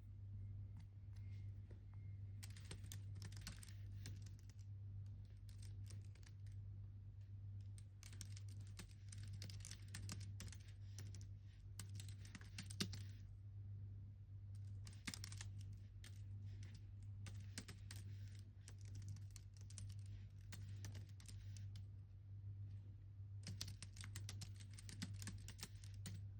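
Typing on a computer keyboard in four runs of rapid key clicks with short pauses between them, over a steady low hum.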